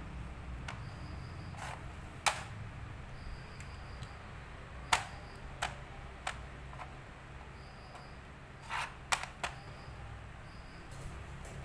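Xiangqi (Chinese chess) pieces clicking as they are set down on the board during moves: single sharp clicks about two, five, five and a half and six seconds in, and a quick run of three near nine seconds, the one at five seconds the loudest. Under them runs a low steady hum.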